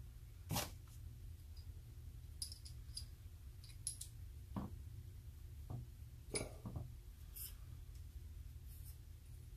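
Faint, scattered small clicks and ticks of a plastic rod end being screwed a little further onto a steering turnbuckle by hand, over a low steady hum.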